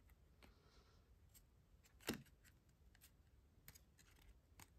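Faint, scattered clicks and ticks of trading cards being handled and flicked through, with one sharper tap about two seconds in.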